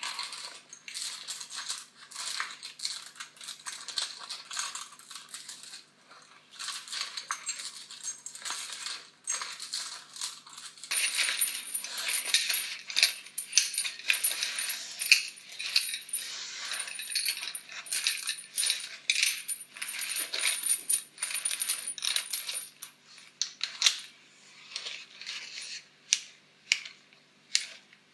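Metal bicycle chain rattling and clinking, link against link, in a dense run of sharp metallic clicks. It breaks off briefly about six seconds in, grows busier about halfway through, and thins to single clinks near the end.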